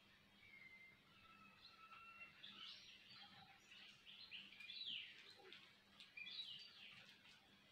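Faint birds chirping in the background, a scatter of short high chirps and whistles that grows busier after the first couple of seconds, over otherwise near silence.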